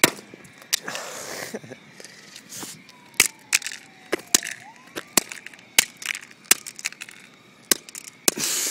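A cell phone being smashed and broken apart: about ten sharp cracks and snaps of its plastic and glass at irregular intervals, with short bursts of crackling noise, the loudest near the end.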